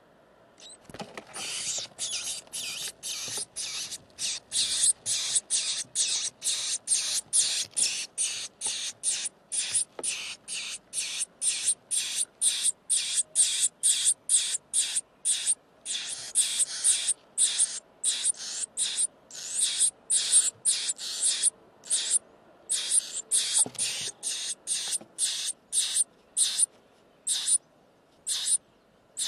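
Nestlings in a nest box giving harsh, hissing begging screams, short calls repeated two to three times a second, as an adult comes in to feed them.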